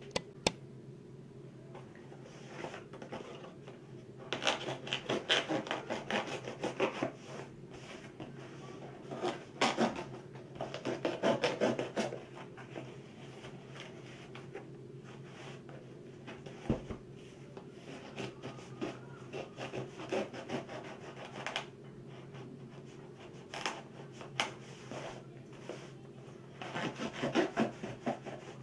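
A blade scraping and slitting through the tape and cardboard of a parcel, in several scratchy bursts with a few sharp clicks, over a steady low hum.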